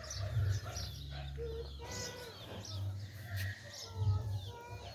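Birds calling in the background, several short pitched calls, over a steady low rumble.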